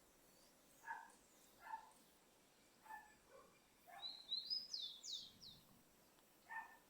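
A bird calls a short phrase of high whistled notes, rising then sweeping down sharply, about four seconds in; this is the loudest sound. Around it, short faint calls or squeaks repeat roughly once a second.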